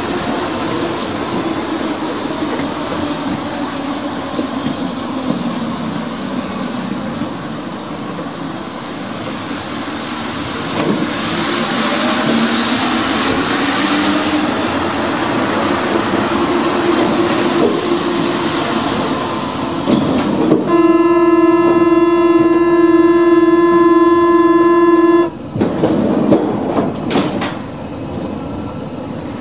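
Running noise of a rubber-tyred MP 73 Paris Métro train heard from the driver's cab, with a motor whine that wavers in pitch. About three-quarters of the way through, a loud steady buzzing tone sounds for about four seconds and cuts off suddenly.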